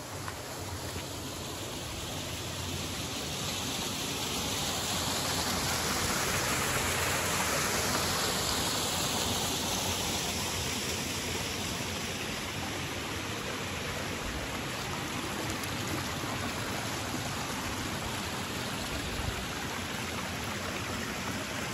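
Flowing water rushing steadily, growing louder for a few seconds about a third of the way in and then easing back.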